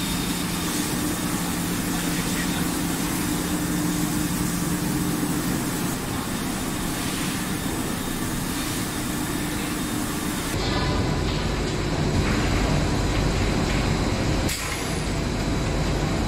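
Industrial machinery running steadily: a vacuum paddle dryer and its drive, a continuous mechanical noise with a steady hum. About ten seconds in it changes abruptly to a deeper, louder rumble.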